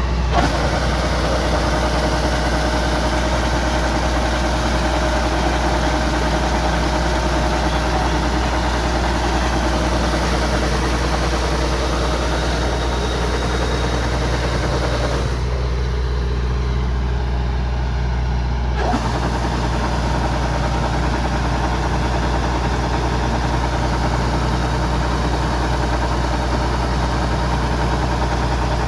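Kubota DC-105X combine harvester's diesel engine running steadily under a constant hum. The higher hissing part of the sound drops away for about three seconds a little past halfway, then comes back.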